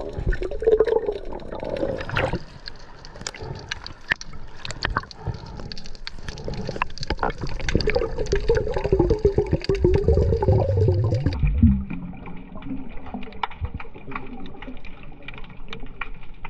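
Water gurgling and sloshing around the camera while snorkelling, with many small clicks. About eleven and a half seconds in, the sound changes abruptly to a duller run of small steady clicks.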